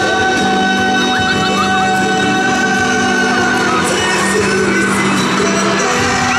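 Live concert music from a male singer's solo stage with band accompaniment, a long note held for about five seconds.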